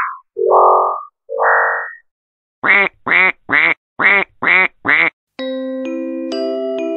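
Cartoon sound effects: two short stepped rising electronic tones, then six quick quack-like squawks in a row, then gentle electric piano music starting about five seconds in.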